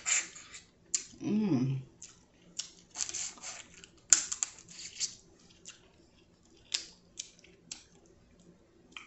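Eating snow crab legs: wet sucking and lip smacks as the meat is drawn out of the shell, among sharp clicks and crackles, the sharpest about four seconds in. A short hummed 'mm' that rises and falls in pitch comes about a second in.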